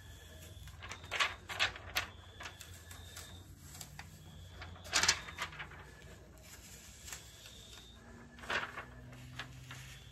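Clear plastic transfer sheet being peeled off holographic heat transfer vinyl, crackling in short bursts: three in the first two seconds, a louder one about five seconds in, and another near the end.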